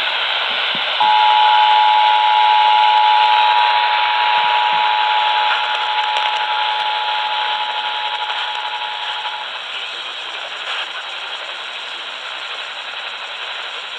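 Emergency Alert System two-tone attention signal: two steady tones sounding together, starting about a second in and stopping after about eight and a half seconds. Steady radio static hiss runs underneath and continues after the tones stop.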